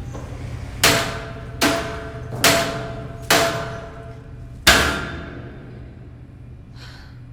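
Five sharp metallic bangs, each ringing as it dies away, the last after a longer pause; a low steady hum runs underneath.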